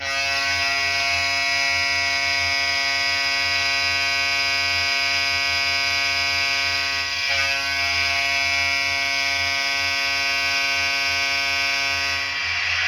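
Tampa Bay Lightning hockey goal horn sounding one long, steady, loud blast, wavering briefly about seven seconds in. The horn stops near the end as other sound takes over.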